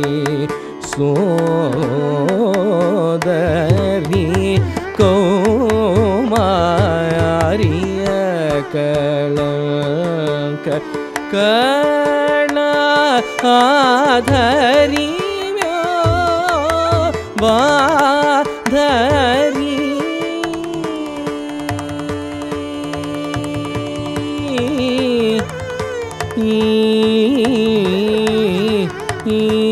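Carnatic classical music: a male vocalist sings wavering, heavily ornamented melodic phrases, shadowed by a violin, over a steady drone, with mridangam drum strokes.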